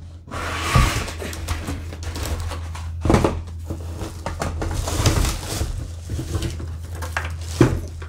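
Cardboard box and its flaps being handled and scraped, with a few knocks, and a plastic bag rustling as a packaged unit is lifted out.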